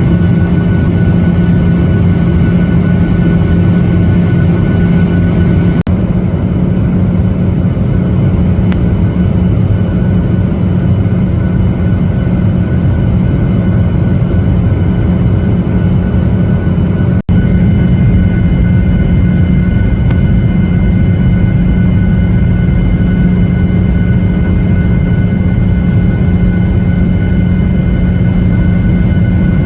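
Airliner cabin noise: the steady drone of the engines and rushing air, a low hum with a few thin steady whines above it. It drops out for an instant twice, about six and seventeen seconds in.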